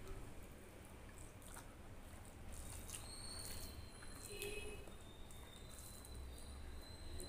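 Faint eating-by-hand sounds: soft wet squishing of fingers mixing rice and curry on a steel plate, with chewing and scattered small clicks.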